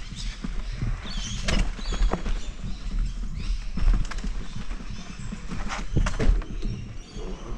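Electric unicycles rolling down a rocky trail, their tyres knocking and clattering irregularly over stones, under a constant low rumble from wind and handling on the camera mic.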